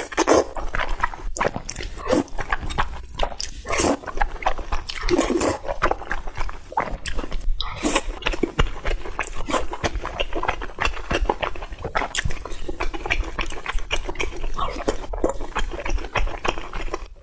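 Close-miked eating: steady wet chewing, smacking and slurping of food.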